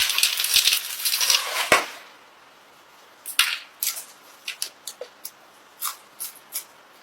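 Close-miked eating sounds: about two seconds of crackly crunching, then a string of short, sharp mouth clicks and smacks as someone chews.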